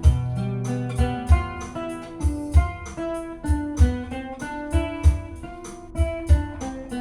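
Instrumental introduction of a seresta song: a plucked guitar melody over bass notes, with a steady beat of low thumps and no singing.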